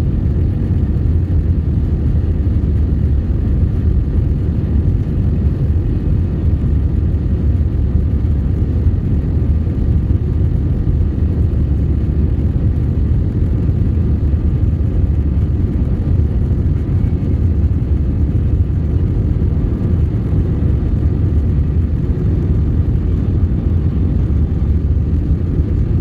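Jet airliner cabin noise in flight: a steady, deep rumble of the engines and airflow heard from a window seat over the wing, with a faint steady hum above it.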